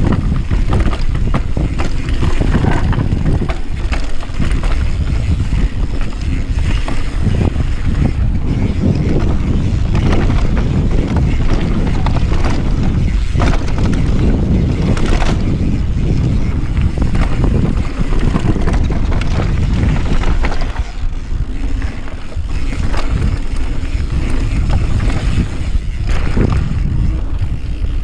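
Wind rushing over the microphone and the rattle of a mountain bike rolling fast down a dirt trail, with frequent sharp knocks as the bike hits bumps.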